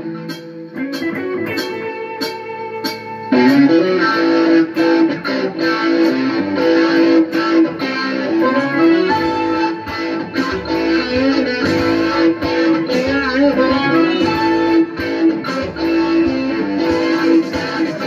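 Electric guitar played through an amplifier: a quieter passage of held notes for the first few seconds, then louder playing with bent notes from about three seconds in.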